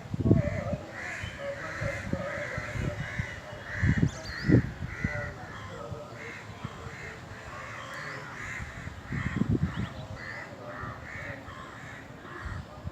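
Crows cawing over and over, about two to three calls a second, with a few low thumps in between.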